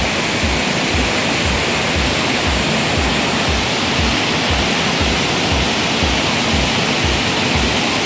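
Waterfall cascades rushing steadily over rocks. Underneath, background music carries a low beat about twice a second.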